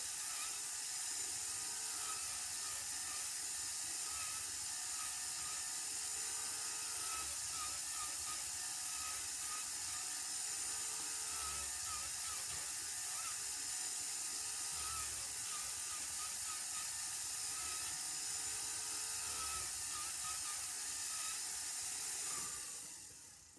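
Rotary tool handpiece spinning a rotary file inside a wax ring, grinding the interior round with a steady, high-pitched hiss. It winds down near the end as the tool is lifted out.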